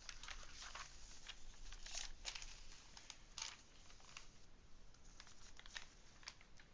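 Faint, irregular crinkling and crackling as a diamond-painting canvas and its plastic cover film are handled.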